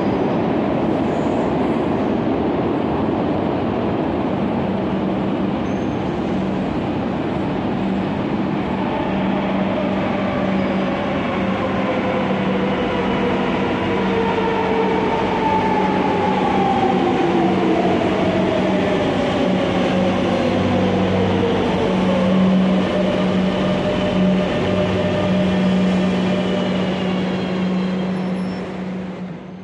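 Madrid Metro electric train pulling into an underground station: a steady running noise of wheels on rail, with a motor whine that falls in pitch as it slows to a stop. Then a steady low hum as it stands at the platform, and the sound fades out at the very end.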